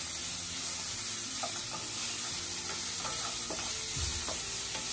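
Sliced onion, tomato, capsicum and carrot sizzling as they sauté in butter in a nonstick pan over a high gas flame, with a wooden spatula scraping and tapping lightly against the pan as they are stirred.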